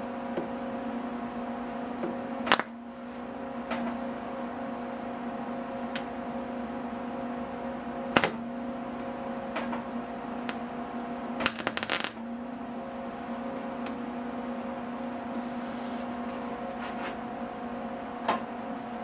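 A steady machine hum with a few sharp metallic clicks and clinks of small parts and tools, including a quick rattle of them about twelve seconds in.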